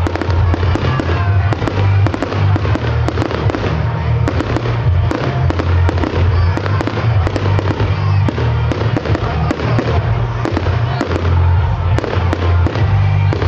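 Fireworks display: aerial shells bursting in a rapid, unbroken run of bangs and crackles, over a constant low rumble.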